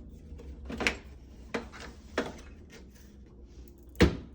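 Four sharp clicks and knocks of plastic panel parts as the dishwasher's outer faceplate is worked loose, the loudest near the end.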